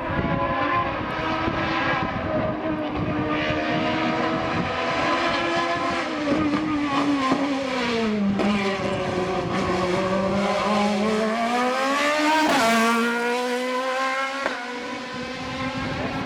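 Hillclimb race car's engine running hard at high revs; its pitch slides down about six seconds in, holds lower, then climbs again near the end, with a sharp crack as it rises.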